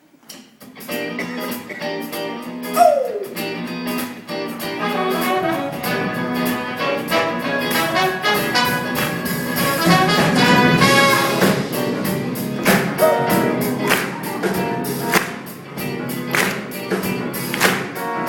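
A live band playing the instrumental intro of an up-tempo gospel song, with drums keeping a steady beat.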